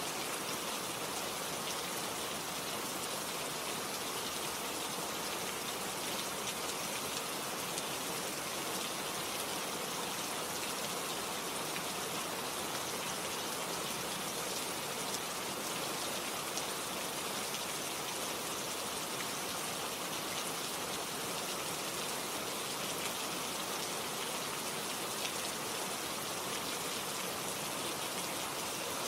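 Steady rain: an even, unbroken hiss of falling rain with faint scattered drop ticks.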